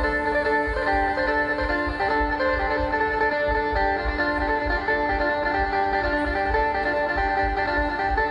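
Instrumental music playing over a stage sound system, with long held notes over a pulsing low bass.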